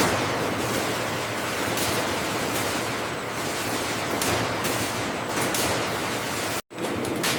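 Steady sizzling hiss with dense small crackles, typical of banana slices deep-frying in hot oil. It cuts off abruptly near the end, and a machine hum with clicking takes over.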